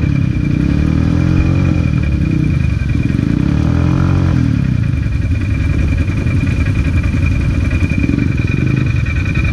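ATV engine running under load through mud and water, revving up and down a couple of times between about two and four and a half seconds in, with a steady high whine throughout.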